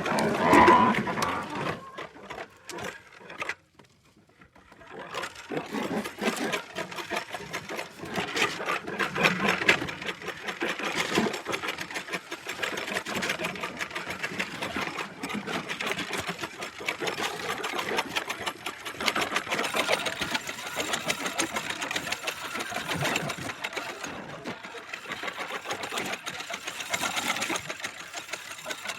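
Creaky old wheel turning: a loud squealing creak at the start, a short pause, then continuous creaking with a rapid, dense rattle.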